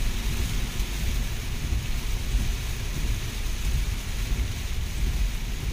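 Heavy rain falling on a car's roof and windshield, heard from inside the cabin, over a steady low rumble.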